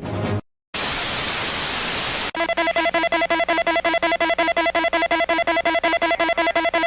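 A loud burst of static hiss about a second and a half long, then a buzzy electronic alert tone pulsing rapidly on and off, like a telephone ringer, signalling an emergency broadcast interruption.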